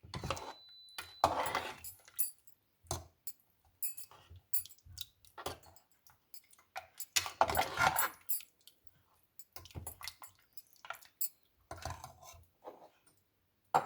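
Metal spoon clinking and scraping against the pressure cooker as the mutton soup is stirred and tasted for salt, in irregular short knocks with brief pauses between them.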